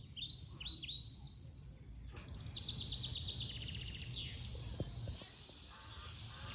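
Small birds chirping: a string of short falling chirps, then a rapid trill about two seconds in, over a low steady background rumble.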